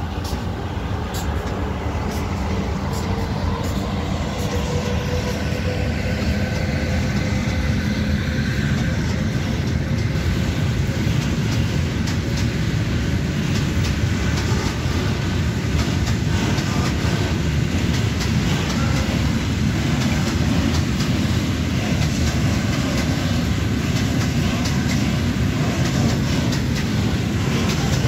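Freight train passing close by: a ZSSK Cargo class 131 twin-unit electric locomotive goes past first, its whine falling slightly and fading over the first ten seconds. A long string of open freight wagons follows with a steady rumble and clicking wheels over the rail joints.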